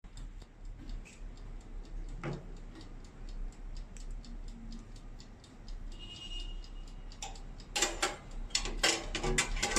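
Mechanical clockwork timer of a Cornell CTO-S10BK oven toaster ticking steadily as it counts down. Near the end, louder metallic clicks and clatter come in as the metal tray is handled.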